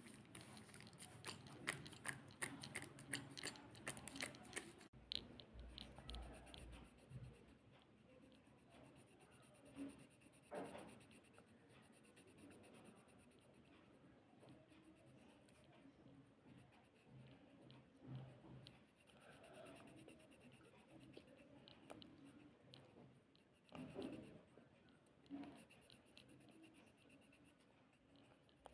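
Fidget board being played with: a quick run of sharp clicks for the first few seconds, then faint scattered taps and rubbing with a few soft knocks.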